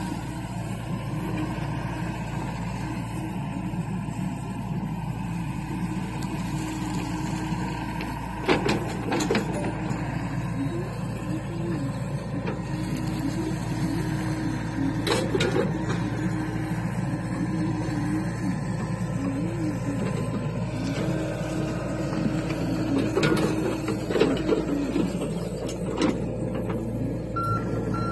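John Deere compact excavator's diesel engine running steadily, its hydraulics rising and falling in pitch as the boom and bucket work the soil. Several sharp metal clanks come from the bucket and linkage, and a travel alarm starts beeping near the end.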